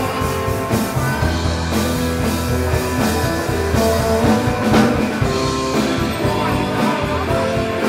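Live rock band playing: two electric guitars over electric bass guitar and a drum kit, at a steady loud level.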